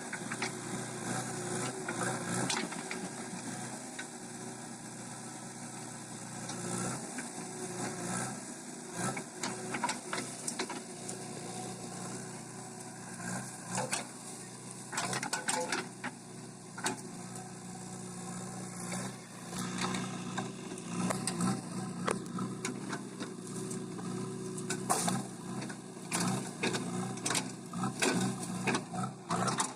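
Backhoe loader's diesel engine running steadily under work, with frequent sharp knocks and clanks that come more often in the second half.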